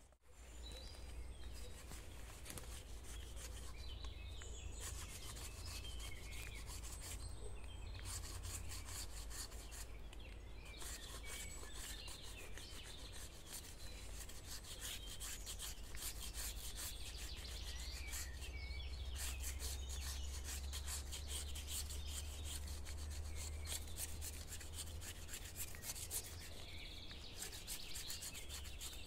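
Continuous rubbing and scraping, a dense run of short rasping strokes, with a few small birds chirping in the background.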